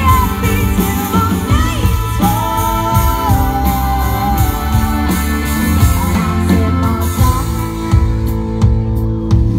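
Country band playing live: a singer holding and bending notes over electric guitar, bass and a drum kit.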